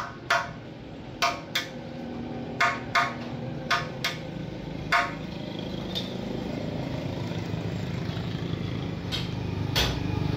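Sharp hammer-like knocks on the cast-iron tractor engine housing being repaired by welding, about ten in all: several in quick pairs over the first five seconds, then two more near the end, each ringing briefly like struck metal. A steady low hum runs underneath and grows louder near the end.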